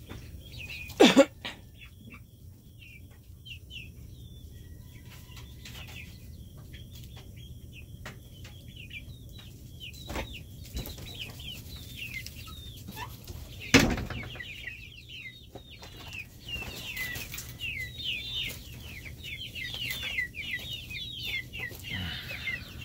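Backyard hens calling with many short, high, falling peeps and chirps, getting busier in the second half. Two sudden loud knocks cut in, about a second in and again near the middle.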